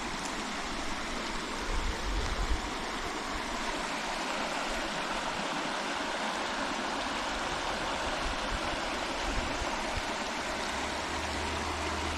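Water in a stream rushing steadily, with a few low bumps about two seconds in.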